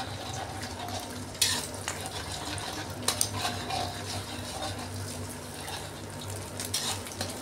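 Metal spatula scraping and clicking against an aluminium wok as eggs are scrambled in hot oil, with a few sharper knocks along the way.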